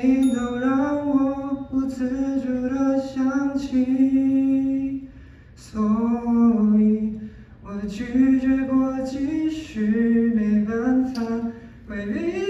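A man singing a Mandarin pop song into a handheld microphone, in long held phrases with short breaks for breath about five seconds in, near the middle and near the end.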